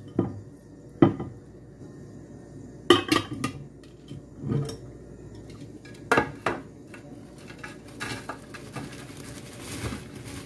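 Kitchenware being handled on a counter: a glass plate and a clear plastic tub knocked and set down in a handful of sharp clinks and knocks. Near the end, a softer rustling as dry white granules are poured into the tub.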